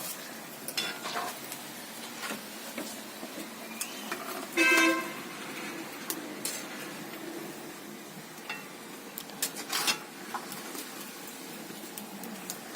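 Bara, fritters of ground lentil batter, frying in a pan of hot oil: a steady sizzle with the clink and scrape of a metal utensil turning them. About five seconds in, a short steady tone sounds for half a second.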